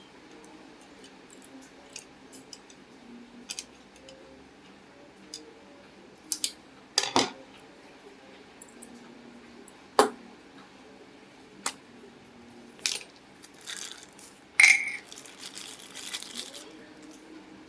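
Scattered clicks, taps and small metallic clinks of tools and parts being handled on a sewing machine, with a sharper clink and brief ring near the end.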